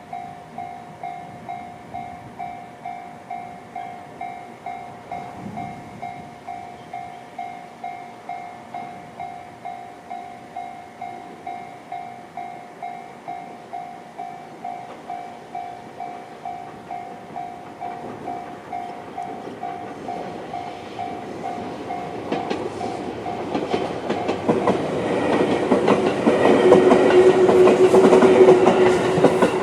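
Japanese railway level-crossing alarm (JR standard electronic bell) ringing in steady rapid strokes, about two a second. In the last third a JR 211-series electric train comes up and passes, growing loud with the clickety-clack of its wheels and drowning out the bell.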